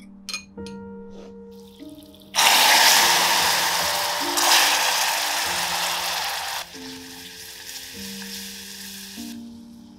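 Hot caramel in a saucepan hissing and sizzling loudly as a milky liquid goes into it, starting suddenly a couple of seconds in, then settling to a softer bubbling hiss while it is stirred with a silicone spatula, before dying away near the end. A few light clinks of a spoon in a glass come first, with soft background music throughout.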